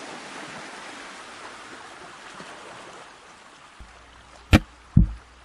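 A steady rushing hiss that slowly fades. About four seconds in, background music starts with a deep bass note and two loud drum hits.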